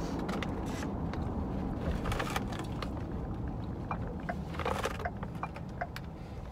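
Steady road and engine noise inside a moving car's cabin, with scattered small clicks and knocks as a plastic drink cup is handled and sipped from.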